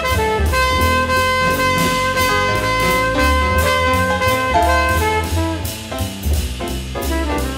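Instrumental big-band-style jazz: a horn holds one long note for about four seconds over a moving bass line and a steady drum-kit beat, then the band plays on with shorter phrases.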